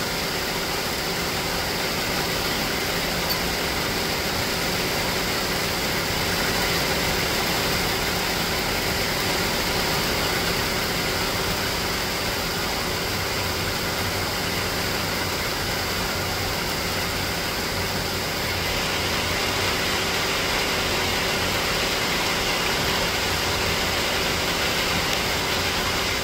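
Steady rain falling: an even, unchanging hiss.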